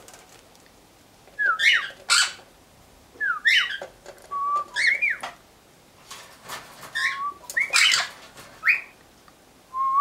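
A cockatiel giving a series of short whistled calls, some sliding up and down and some held briefly on one note, between short bursts of splashing and wing-fluttering as it bathes in a hooded bird bath.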